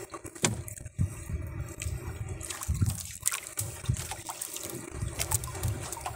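Wet fishing net being hauled by hand into a boat, water streaming and dripping off the mesh with irregular splashes and slaps.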